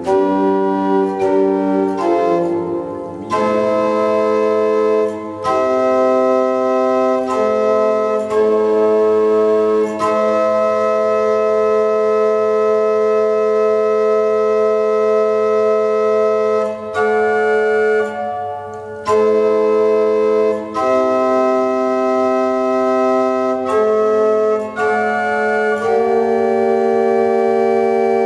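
Organ music: slow, held chords that change every few seconds.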